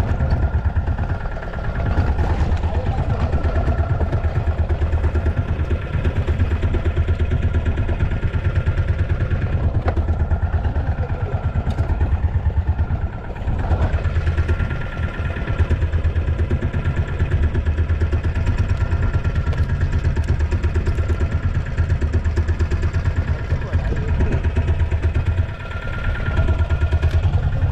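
Fishing boat's engine idling steadily, a fast low chugging.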